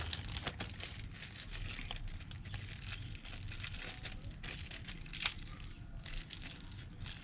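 Hands handling a new motorcycle drive chain and its master link parts: a run of light rustling and small clicks, with one sharper click about five seconds in.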